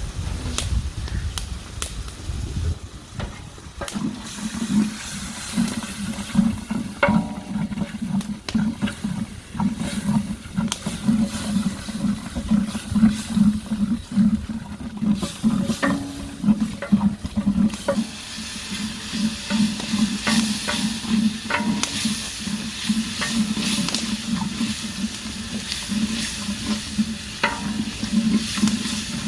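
Onion-tomato masala frying in oil in a large pot, stirred and scraped in steady rhythmic strokes with occasional knocks against the pot. The sizzle grows stronger about two-thirds of the way through.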